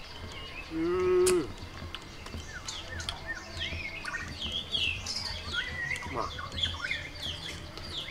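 Small birds chirping and twittering throughout, with a brief loud held note about a second in.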